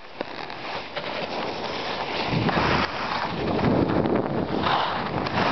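Wind rushing over the camera microphone, mixed with skis scraping across packed snow on a downhill run. It grows louder about two seconds in and then swells unevenly.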